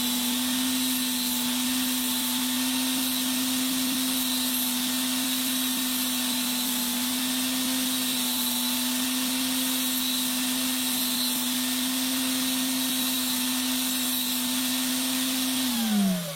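Electric sander motor running steadily at full speed while grinding down the side of a steel kitchen-knife blade, with a constant high hiss from the grinding. It winds down with a falling pitch right at the end.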